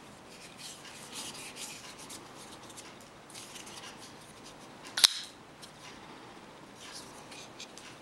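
A folding knife turned over in the hands, with scratchy rubbing of the handle. About five seconds in the blade snaps open and locks with one sharp, loud click, followed by a few faint ticks.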